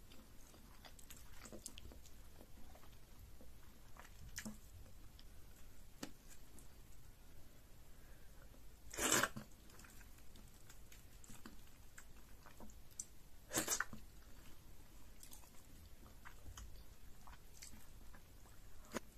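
Close-up eating sounds of fufu with banga soup and tilapia eaten by hand: chewing with soft, wet mouth clicks. Two louder, brief sounds come about nine and thirteen and a half seconds in.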